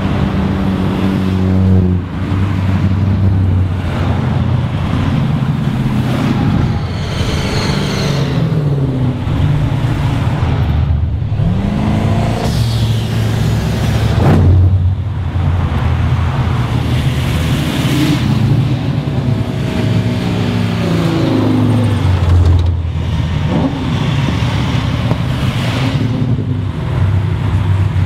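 Modified cars driving past one after another, their engines and exhausts rumbling, with the revs rising sharply a couple of times about halfway through.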